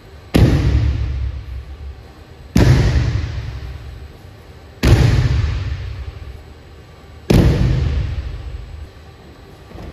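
Judo throws landing on a gym's mats: four heavy thuds about two and a half seconds apart, each echoing and fading slowly.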